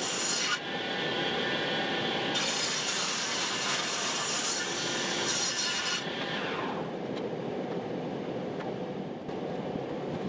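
Steady noise of a tool cutting or rubbing wood, changing abruptly a few times.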